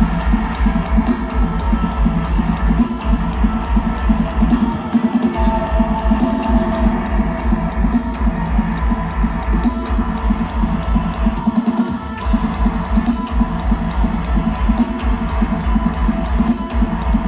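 A hardcore/metalcore band plays live at full volume, with heavily distorted guitars and bass over dense, fast kick drums. The low end drops out briefly twice.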